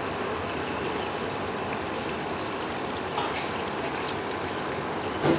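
Whole chicken frying in hot oil in a steel pan on an induction cooker: steady sizzling and bubbling, with a couple of faint pops about three seconds in and a short louder sound at the very end.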